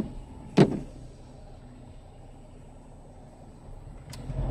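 Low steady rumble inside a car's cabin, stopped in traffic, with one loud short thump about half a second in. Near the end, the hiss of tyres on wet road rises.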